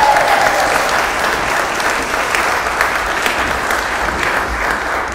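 A crowd applauding steadily, easing off slightly toward the end.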